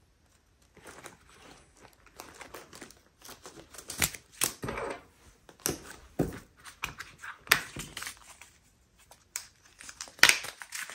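Small plastic bags of leftover diamond painting drills crinkling as they are handled and packed, with irregular rustles and sharp clicks.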